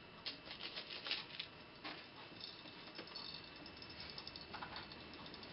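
Nuts and washers clicking and rattling as they are worked by hand onto a threaded metal rod, with a quick run of clicks in the first second and a half and fainter scattered clicks after.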